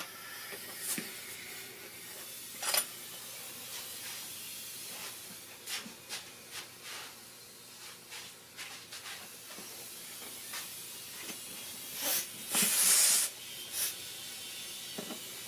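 Compressed air from a small air compressor hissing through the air chuck as a lawnmower inner tube is inflated. A few small handling clicks, and a louder, brief rush of air about twelve and a half seconds in.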